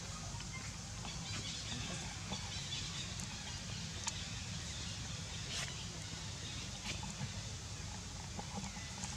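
Quiet outdoor ambience: a steady low rumble with scattered faint clicks.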